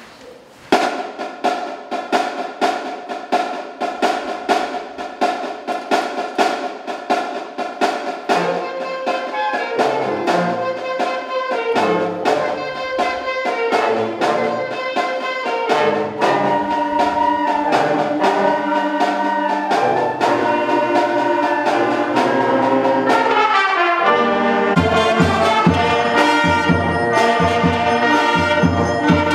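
Student wind band of saxophones, clarinets, trombones and trumpets playing: sustained chords over a steady percussive beat, with lower parts joining about a third of the way in. The band grows gradually louder, and after a falling run it swells into a fuller, louder passage near the end.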